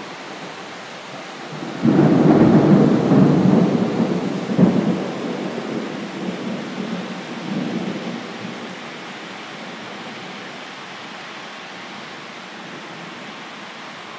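Thunder over steady rain: a clap breaks in suddenly about two seconds in and rolls on, with a sharper crack partway through, then dies away over several seconds.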